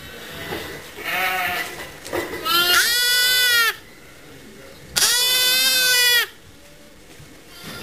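Orphaned lambs bleating: a shorter bleat about a second in, then two long, loud bleats of over a second each.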